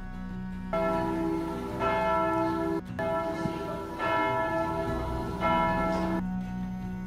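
Church bells ringing: about five strikes, each ringing on into the next, with a steady low tone from background music beneath; the bells stop about six seconds in.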